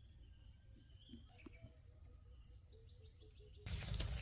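Steady high-pitched insect chorus, typical of crickets, with faint short chirps under it. Near the end, a louder rushing noise comes in suddenly.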